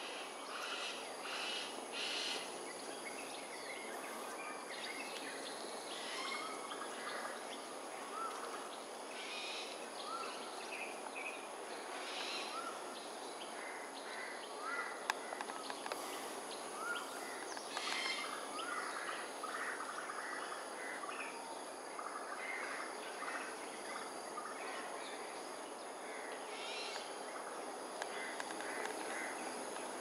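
Birds calling at a communal roost, many short calls scattered throughout over a steady high-pitched insect drone.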